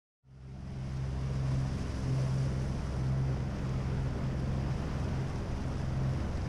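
Motorboat engine running steadily at speed, a constant low hum, under the rushing of the wake and wind on the microphone, heard from aboard the boat. It fades in just after the start.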